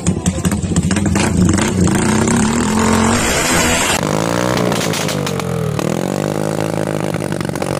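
Modified Honda TMX 155 fuel-injected four-valve single-cylinder engine being revved in a sound test: held at raised revs at first, then the revs dip to a low point about six seconds in and climb back to a steady run.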